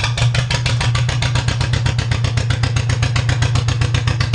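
John Deere 430W's two-cylinder engine running steadily with the choke pulled, a second after starting, in a quick, even firing beat. It is firing on freshly fitted spark plug wires.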